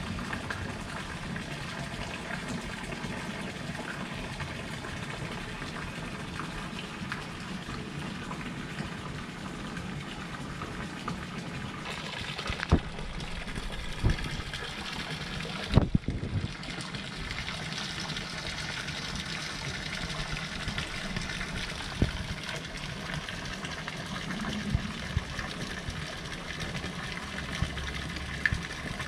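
Steady rush of running or falling water, with a few soft knocks and a brief dip about halfway through.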